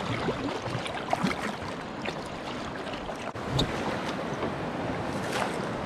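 Kayak paddle strokes dipping and splashing, several times, over a steady rush of moving river water near a rapid.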